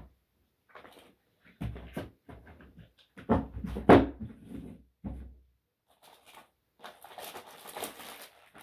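Boxes of fireworks being moved and handled: irregular bumps, knocks and rustling, loudest about three to four seconds in, with heavy breathing from the person lifting them. A longer stretch of rustling comes near the end.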